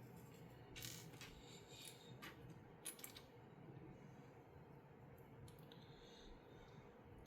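Faint clicks of plastic LEGO pieces being handled and snapped together, several in the first three seconds and one more later, over quiet room tone.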